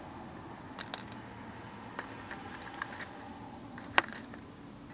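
Small clicks and handling noises from alligator-clip leads and a diode being repositioned by hand, with one sharp click about four seconds in, over a faint steady hum.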